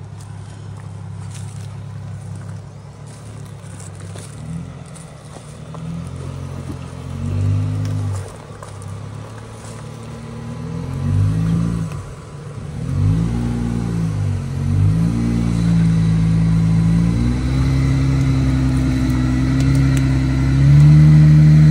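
Jeep Wrangler's engine revving up and down again and again as it crawls over a rough woodland trail. It idles at first, then rises and falls in pitch many times, growing louder as the Jeep comes closer and loudest near the end.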